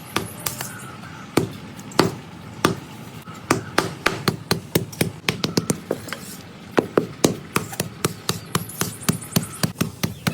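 A clay pot being beaten into shape with a wooden paddle: a run of sharp, dull knocks, spaced about a second apart at first, then coming several a second after about three and a half seconds.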